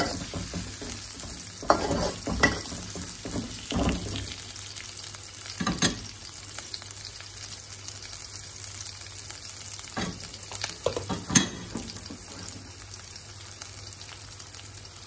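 Sliced onion, ginger, garlic and bird's eye chilli sizzling in hot oil in a wok, the onion nearly wilted. A spatula scrapes and knocks against the wok several times in the first six seconds and twice more about ten and eleven seconds in.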